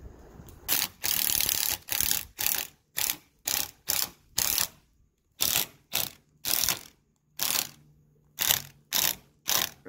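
Cordless drill driving a long screw through trim into wooden framing in a string of short trigger bursts, a longer run about a second in and then about a dozen quick pulses, until the screw is seated tight.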